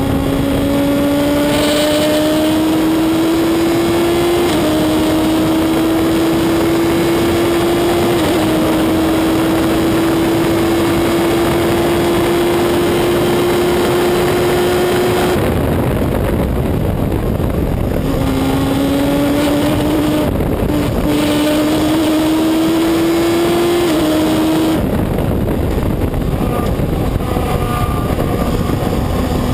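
Reynard Inverter sports-racing car's engine at racing speed, heard from the cockpit: it pulls hard, rising in pitch, with two quick upshifts in the first eight seconds. About halfway through the driver lifts off the power, then the engine pulls up again with another upshift. It eases off once more and picks up again near the end.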